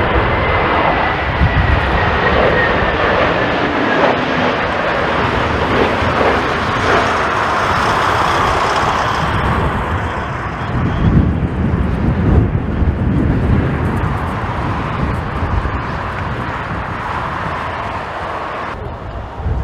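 Jet airliner's engines running as it passes on approach, a steady loud noise with a high whine that slowly falls in pitch over the first few seconds; the higher part of the noise drops off abruptly near the end.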